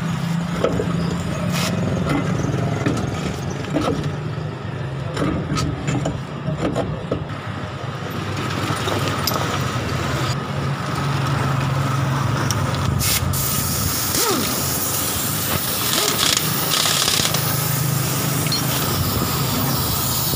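An engine running steadily, with scattered metal clicks and knocks from hand tools.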